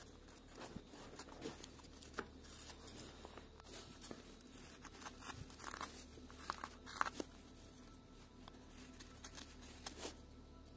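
Carving knife paring small shavings from a hand-held wooden figure: quiet, irregular scraping cuts and little clicks, with a few sharper cuts about two-thirds of the way through.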